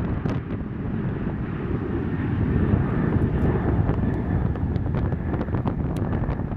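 Alaska Airlines Boeing 737 jet engines at takeoff power during the takeoff roll and rotation: a steady heavy low rumble with a faint high whine over it.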